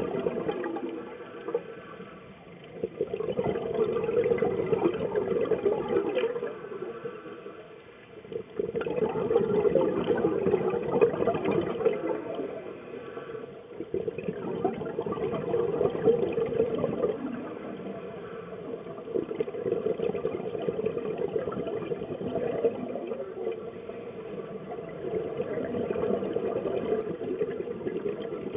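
Scuba diver's exhaled bubbles gurgling out of the regulator, recorded underwater, in surges every four or five seconds with quieter gaps between breaths.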